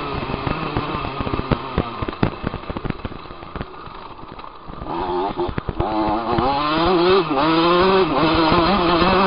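Dirt bike engine riding over a rough dirt track. For the first half it runs low, with many sharp knocks and rattles from the bumps. About halfway through it revs up, its pitch rising and wavering with the throttle, and stays high near the end.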